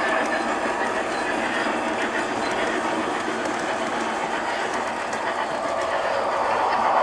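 O-scale model train rolling past on its track, its coaches' wheels making a steady rumbling clatter with light clicks over the rail joints.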